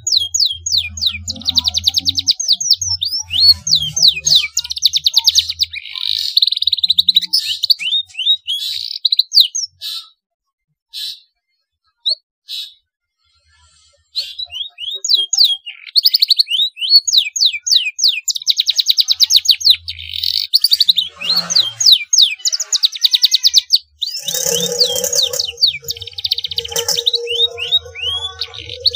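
Domestic canary singing fast trills and rising and falling whistled sweeps, its song filled with learned phrases of the black-throated canary. The song stops for a few seconds about a third of the way in, with only a few single notes, then resumes.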